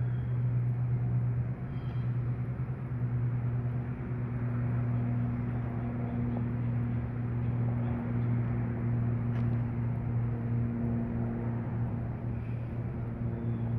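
Steady low machine hum with a constant drone, over a faint even background rush, with a few faint ticks and high chirps.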